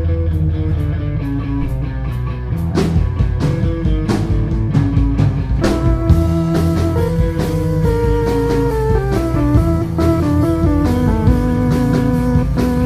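Live band playing an instrumental passage: electric guitar and bass with drums, a melody of held notes stepping up and down over a steady beat.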